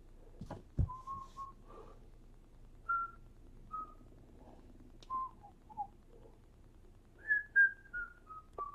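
A person whistling a few short, scattered notes, ending with a run of notes stepping down in pitch. A single thump about a second in.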